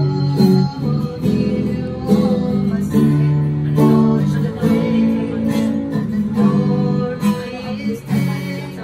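Acoustic guitar strummed in a steady rhythm, its chords changing every second or so, with a second guitar playing along.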